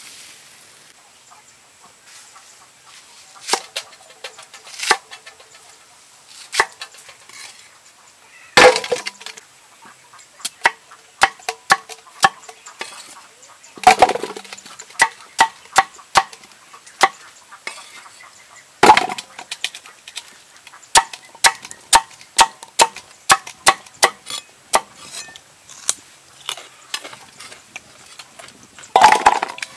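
Chunks of cut vegetable dropping into an aluminium pot, knocking and clinking against the metal. There are a few loud clunks that ring briefly, with runs of quick, lighter clicks between them.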